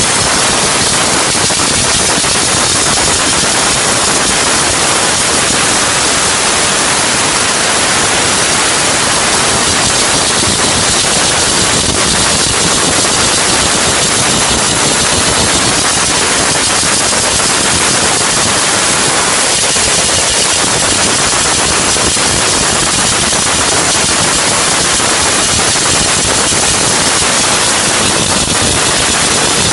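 Diesel-fired steam car washing machine running, with a loud, steady hiss that does not let up, and machine noise underneath.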